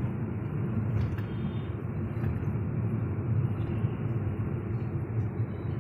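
Steady low rumble of engine and road noise inside the cabin of a Hyundai Grand i10 Nios on the move. The freshly rebuilt petrol engine runs smoothly, with no knock or other odd noise.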